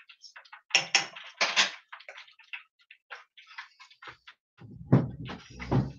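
Irregular light crackling and popping of fish deep-frying in hot oil. Two louder clattering sounds come about a second in, and dull low bumps near the end.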